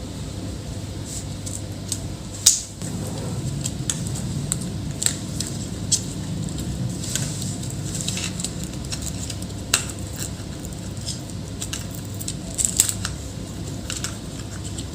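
Irregular small clicks and scratching from dust being cleaned out of a laptop's cooling fan by hand, over a steady low hum, with a few sharper clicks.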